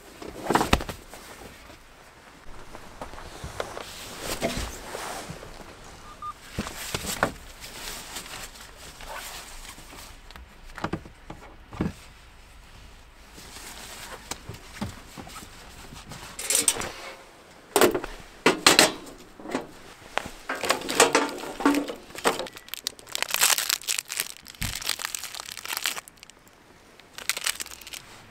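Hands handling split firewood in a metal fire pit and crinkling a foil fire-starter wrapper: irregular knocks and clatter mixed with crinkling rustles, busiest in the second half.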